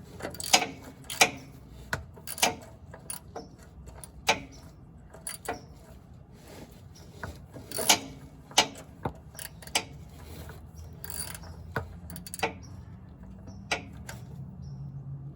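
Socket ratchet clicking in irregular strokes as an oil pan drain plug is tightened, the clicks growing sparser toward the end.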